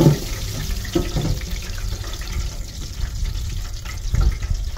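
Hot oil sizzling in an electric deep fryer after chicken fingers have been fried, a steady hiss. Metal tongs knock against the wire fry basket a few times.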